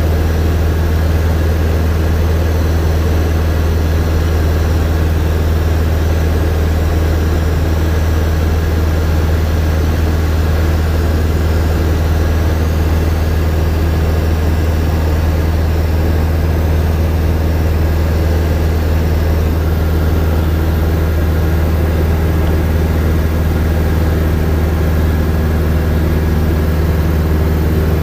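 Cockpit noise of a Robin DR400 light aircraft in flight: the single piston engine and propeller running steadily with a low, even drone, heard inside the cabin.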